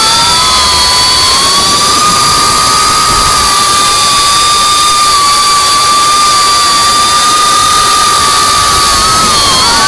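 FPV quadcopter's electric motors and propellers whining at a steady throttle over a rushing hiss, the pitch dipping briefly at the start and wavering upward near the end.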